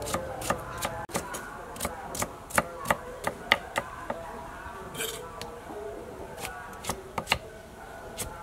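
Kitchen knife chopping raw potato and carrot on a cutting board: quick, irregular blade strikes, about two or three a second.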